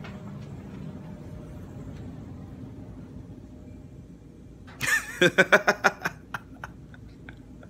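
A low steady hum, then a little past the middle a loud, wavering vocal outburst of about a second and a half from a person, followed by a few sharp clicks.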